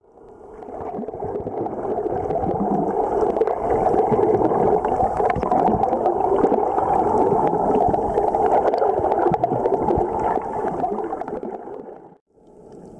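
Muffled underwater noise picked up by an underwater camera: a steady churning and gurgling of water that fades in at the start and cuts out briefly near the end.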